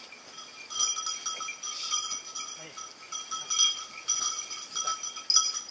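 Small bells jingling on and off, several high ringing tones that come and go irregularly.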